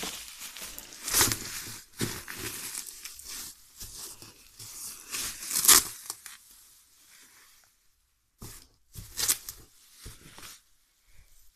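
Plastic wrapping film being pulled and torn off a cardboard box, crinkling and tearing in irregular bursts, loudest about a second in and near the middle, with a short pause about two-thirds through.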